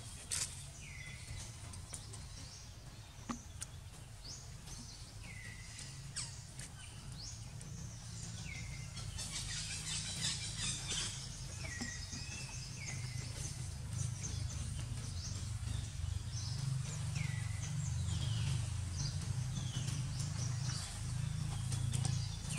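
A bird calling again and again, each call a quick falling note that levels off, every one to two seconds, over a steady low rumble.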